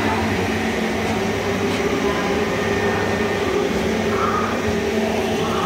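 Steady drone of a Vande Bharat Express coach's air-conditioning and onboard equipment, with a low electrical hum, while the train stands at the platform.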